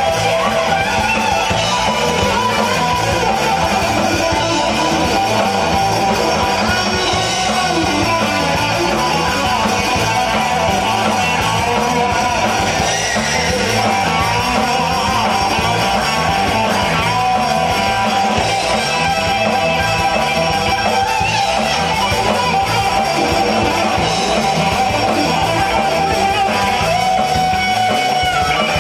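Live rock band playing loudly: a Les Paul-style electric guitar through Marshall amps plays lead lines with bent notes over a steady drum beat, with no vocals.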